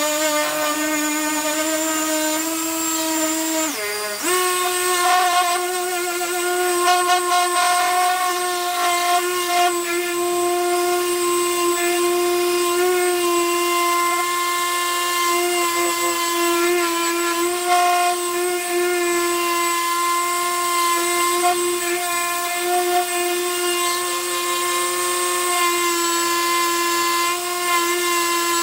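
Parkside PAEXS 20-Li A1 cordless 20 V random orbital sander running steadily with a hum, sanding old paint off a wooden beam. Its pitch sags briefly about four seconds in, then settles a little higher.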